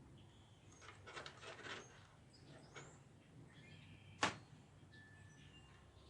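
Faint handling noises from wiring work: a scratchy rustle of wires about a second in, then one sharp click about four seconds in.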